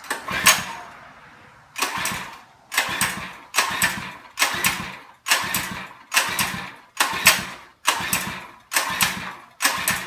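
Recoil pull-starter on a Monster Moto mini bike's small engine yanked about eleven times in quick succession, roughly one pull a second, each a short rasping crank that dies away. The engine is cranked with the choke on but never catches.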